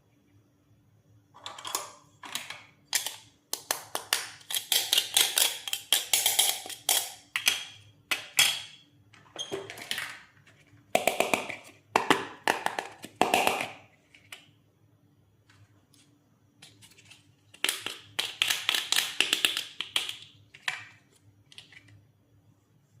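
Toy doctor-set pieces and packaging being handled: many quick clicks, taps and rustles in two long stretches with a quiet pause between them.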